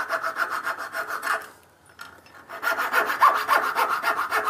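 Coping saw cutting out the waste between dovetail tails in a timber board, with quick, even back-and-forth strokes. It stops for about a second partway through, then resumes.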